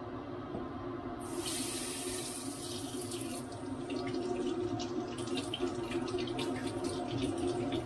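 Kitchen mixer tap running into a stainless steel sink while hands rub a piece of fruit under the stream. The flow grows brighter and louder about a second in, and there is irregular splashing as the hands break the stream.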